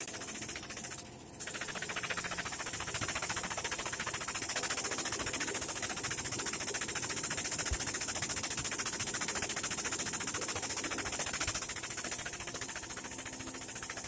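The hydraulic pump of a 50-ton press running steadily with a fast, even chatter while the ram forces a rusted shaft out of a packer wheel hub. It dips briefly about a second in, then holds steady.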